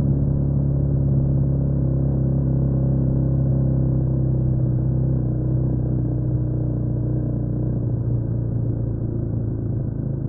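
Honda CMX250 Rebel motorcycle riding at a steady cruise, its engine and exhaust running at an even pitch, easing off slightly near the end.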